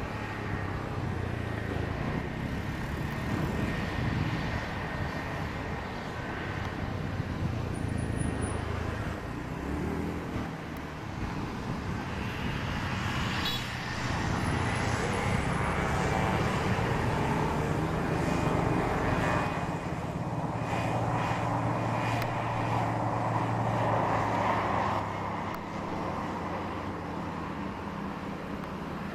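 KAI KT-1 Woongbi trainer's PT6A turboprop engine and propeller running as the aircraft rolls along the runway: a steady, low drone that swells louder partway through and eases off near the end.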